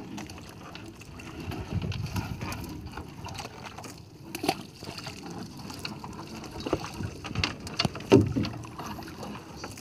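Water sloshing and dripping with scattered knocks as a fishing gill net is hauled up into a small boat.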